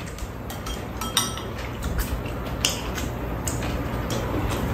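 Metal chopsticks and spoons clinking against bowls on a metal serving tray while two people eat, several short sharp clinks scattered through, over a steady low hum.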